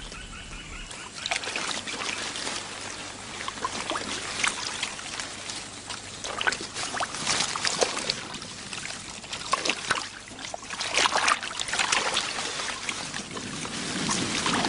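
Marsh water splashing and trickling in irregular bursts.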